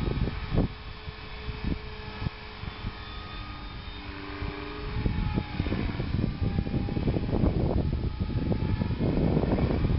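Radio-controlled model helicopter flying: a faint whine from its motor and rotor that shifts in pitch, under heavy wind rumble and buffeting on the microphone that grows louder in the second half.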